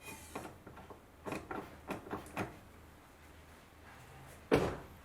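Brake pedal of a 2004 Honda Accord being pressed and pumped after a front pad change, with light clicks and knocks, then one loud thump about four and a half seconds in. The pedal sinks far because the caliper pistons were pushed back and must be pumped out to the new pads.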